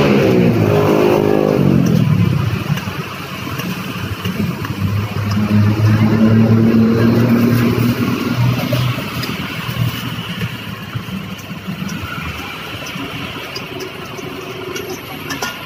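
Road traffic going past: an engine whose pitch falls as it passes in the first two seconds, then another engine running steadily from about four to nine seconds in. A few light metal clinks of a ladle against a steel bowl near the end.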